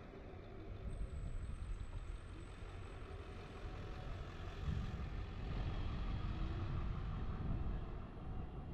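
Low rumble of a car's engine and tyres while driving and turning, getting a little louder about halfway through.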